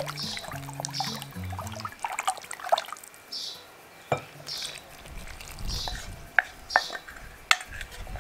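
Wooden spoon stirring yeast water in a glass measuring jug, then the liquid poured from the jug into a glass bowl of flour, with several sharp clinks of spoon and glass in the second half.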